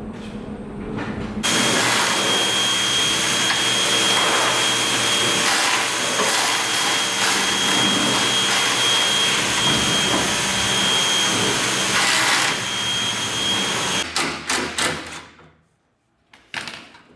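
A power tool running steadily with a high whine for about twelve seconds, then cutting off, followed by a quick series of sharp knocks.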